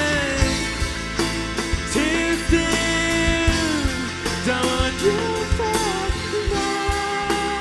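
Live rock band playing: drum kit beating steadily under electric guitar, with a male singer's voice over the top.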